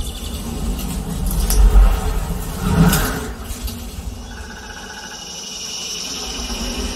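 Dolby Atmos demo sound effects played through home theater speakers and picked up by a phone: a deep rumble that swells to its loudest near two seconds, a short whoosh about three seconds in, then a quieter, steadier sound with a high hum.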